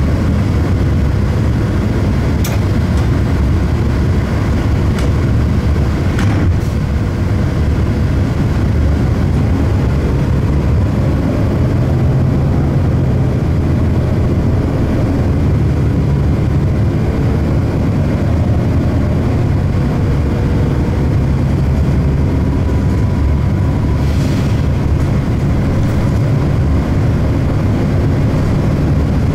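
Inside the cabin of an Orion VII third-generation CNG transit bus under way: a steady low engine and drivetrain drone with road noise, and a faint whine that comes and goes. A few light clicks or rattles fall in the first several seconds, and a brief hiss comes about 24 seconds in.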